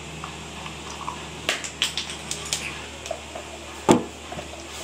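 A quick run of light clicks and taps, then a single loud knock near the end, like a hard object being handled and set down.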